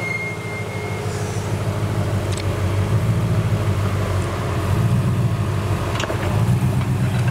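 Nissan Patrol GQ engine working under load as the four-wheel drive climbs a rock step. It grows louder from about two seconds in, with several surges of throttle. A couple of sharp knocks come through as it clambers over the rock.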